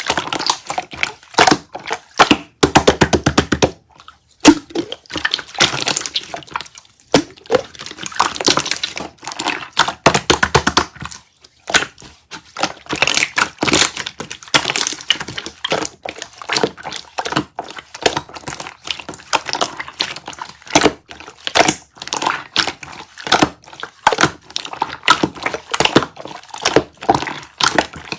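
Water jelly being squished and crushed: a dense, irregular run of crackling, wet clicks with a few short pauses.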